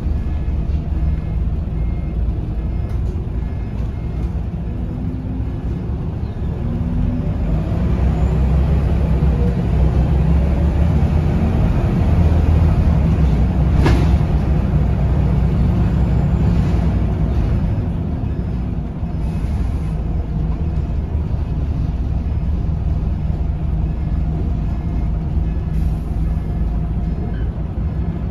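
Scania L94UB city bus heard from inside the cabin: its diesel engine and ZF automatic gearbox running as the bus drives, with a low steady hum and a few short rising tones. The sound grows louder toward the middle and then eases off, with one sharp click about halfway through.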